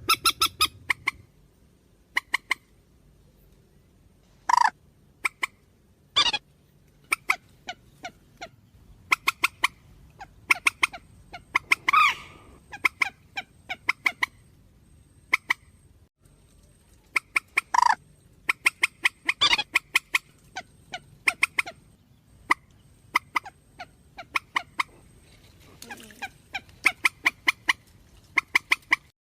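Recorded calls of the trích ré, a bird that Vietnamese trappers lure at night: short, sharp, high calls repeated in quick clusters of several notes, with brief pauses between clusters.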